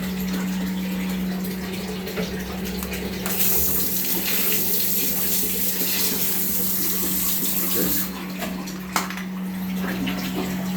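Water running steadily from a faucet into a basin, over a steady low hum. The water turns louder and hissier from about three to eight seconds in, and there is a sharp click about nine seconds in.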